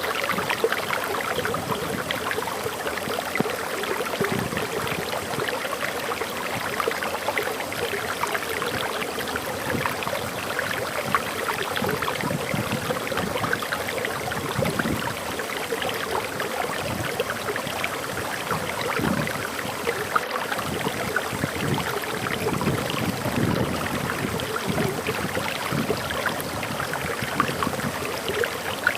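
Small waterfall in a forest: water pouring and splashing over rocks in a steady, unbroken rush with constant fine trickling and spattering.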